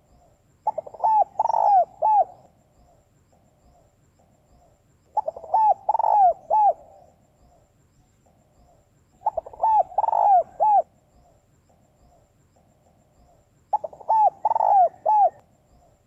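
Female spotted dove cooing: four phrases of several quick curved coos, one about every four seconds, with faint soft notes between the phrases.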